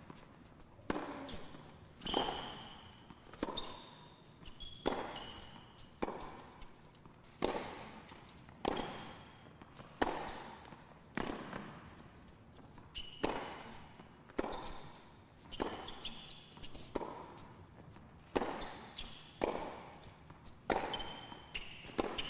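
Tennis ball struck back and forth with rackets in a long baseline rally, a hit roughly every second and a quarter, with short high squeaks between some of the shots.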